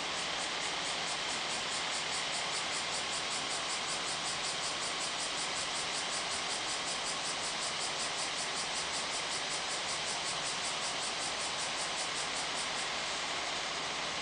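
A chorus of cicadas shrilling in a fast, even pulse, about three to four beats a second, which stops about thirteen seconds in. Underneath is a steady rush from the diesel coach pulling slowly away and from road traffic.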